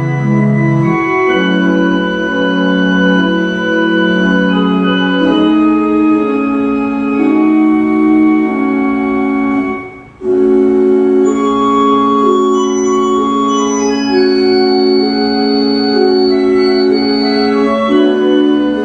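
Church organ playing slow, sustained chords, with notes held and changing every second or two and a brief break about ten seconds in. This is the instrumental music before the opening acclamation of the Eucharist.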